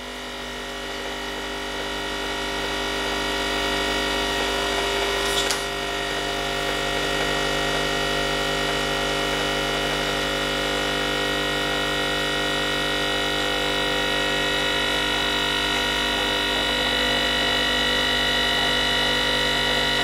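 DeLonghi Dedica espresso machine's vibratory pump buzzing steadily as it pushes coffee into the cup, growing a little louder over the first few seconds, with a short click about five seconds in. The pump keeps running for a full cup rather than cutting out after three seconds: the sign that the volume reset worked.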